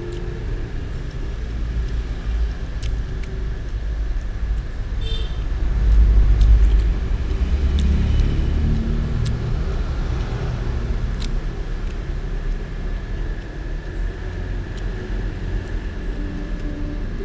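Road traffic rumble, swelling louder about six seconds in as a vehicle passes. Occasional light clicks of a metal spoon against the plate.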